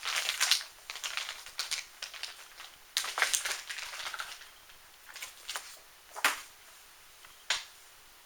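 Plastic packaging crinkling and rustling in several bursts as kit parts are handled, followed by two short sharp clicks near the end.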